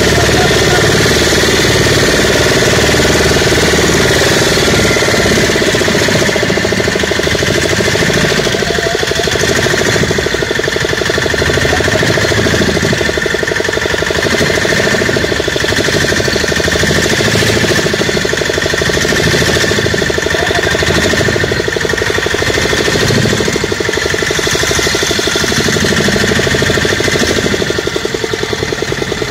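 Fibre fishing boat's engine running steadily under way, close by, with a rapid, even beat.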